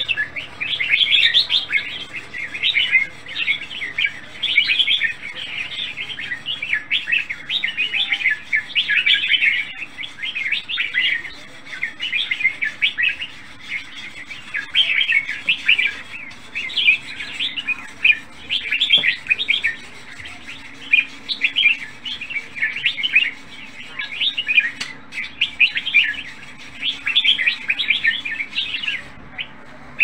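Caged red-whiskered bulbul singing: short, quick phrases of bright notes, repeated over and over with brief pauses. The keeper judges it a good voice with no faults.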